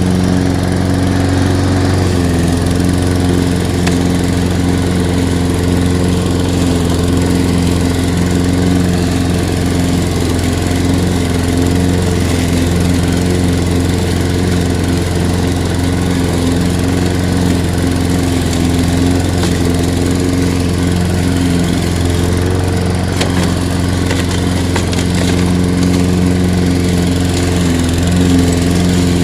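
Toro 21321 self-propelled mulching lawn mower's Briggs & Stratton 140cc engine running steadily under load while cutting thick, tall grass; the engine note shifts slightly about two seconds in and again a little past twenty seconds.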